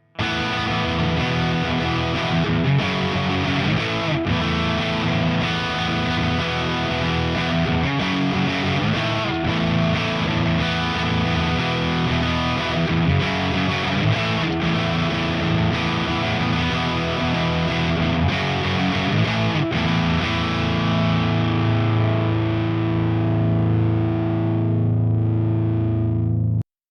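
Kramer Baretta Special electric guitar with a Seymour Duncan DDJ bridge pickup, played with heavy distortion through a Diezel VH4 head and a Marshall 4x12 cab: a fast riff, then a held chord from about 21 seconds in that slowly fades and is cut off suddenly near the end.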